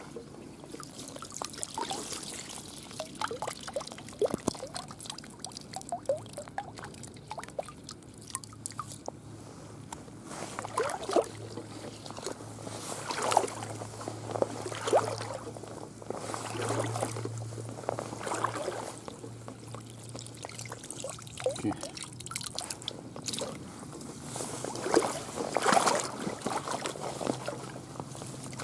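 Shallow water sloshing and trickling in irregular splashes, the sound of wading and sweeping a hand net through a ditch. A low steady hum runs underneath.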